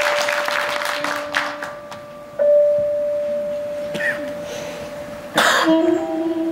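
Keyboard opening a piece with a single sustained pad note held steady, struck again louder about two and a half seconds in, as the last applause dies away at the start. A short crash comes a little after five seconds, then the keyboard moves to a new organ-like chord.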